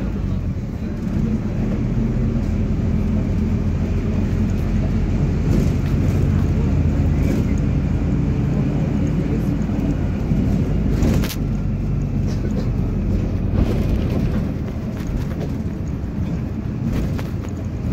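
Cabin noise inside a moving PAZ-320402-04 city bus: the engine and road noise make a steady low drone. A single sharp knock comes about eleven seconds in.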